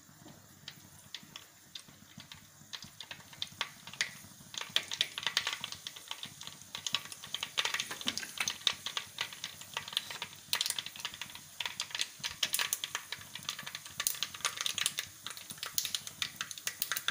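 Mustard seeds popping and crackling in hot oil in an earthenware pot. The pops come sparsely at first and turn to rapid, dense crackling from about four seconds in, as the seeds splutter: the sign that the tempering oil is hot and the seeds are ready.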